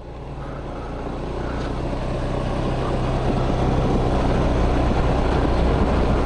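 Honda Lead 125 scooter's single-cylinder engine running steadily while riding, with wind and road noise. It grows louder over the first few seconds, then holds steady.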